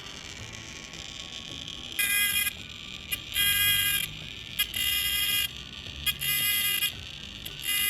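Electronic sound-generator circuit imitating a dentist's drill: a steady high hiss, then from about two seconds in a high-pitched buzzing tone that switches on and off in bursts of half a second to a second, four times and starting a fifth near the end.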